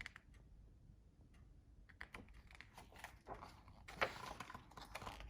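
Faint clicks and short paper rustles from the pages of a picture book being handled and turned, the sharpest click about four seconds in.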